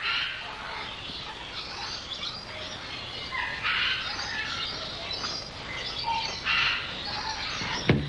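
Tropical rainforest birds calling in short bursts of chirps and chatter over a steady forest background. Near the end comes a single sharp snap with a brief low hum after it: a hunter's wooden bowstring being released.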